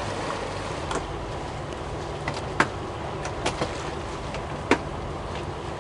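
Steady hum and water wash of a sailing catamaran under way, with a few sharp clicks, two of them louder, near the middle and toward the end.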